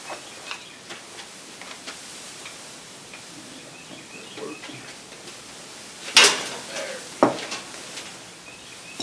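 Scattered light clicks and two sharp knocks, the louder about six seconds in and another a second later, from parts and a cord being handled at the compressor tank, over a faint steady hiss.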